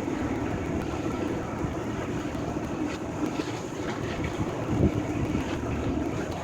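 Heavy demolition machinery engine running steadily, with a few scattered knocks of the building being broken up, the loudest about five seconds in.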